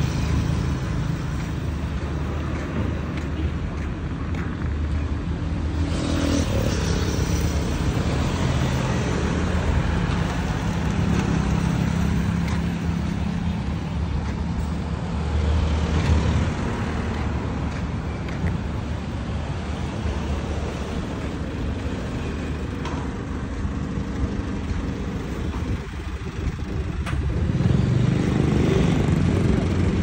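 Road traffic: cars and pickup trucks driving past on a busy street, engine and tyre noise swelling and fading as each goes by, with a louder pass about halfway through and another near the end.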